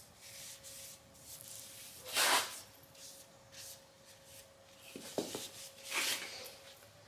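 A paper towel wiping linseed oil onto a knife handle: a few short scattered rubbing strokes, the loudest about two seconds in, with a couple of light clicks shortly after five seconds.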